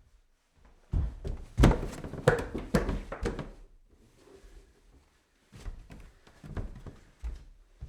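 Footsteps climbing stairs: a fast run of heavy thuds and scuffs starting about a second in and lasting a couple of seconds, a quieter pause, then another run of steps near the end.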